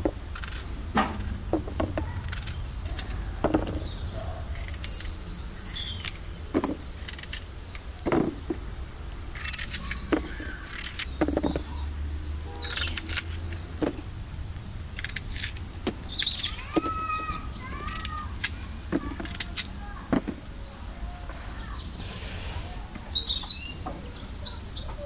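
A knife cutting through fresh apples, with the halves dropping into a plastic basin in a string of soft knocks, while small birds chirp.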